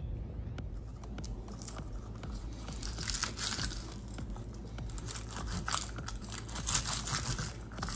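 Garlic cloves being rolled under the palm inside a tube garlic peeler on a wooden cutting board: their papery skins crackle and crinkle as they split away. It starts about two seconds in and is busiest in the middle.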